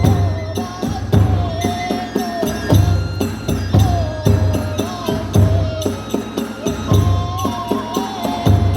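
Kagura hayashi music: a bamboo flute plays a held, wavering melody over deep drum beats and frequent clashes of small hand cymbals. The flute steps up in pitch about seven seconds in.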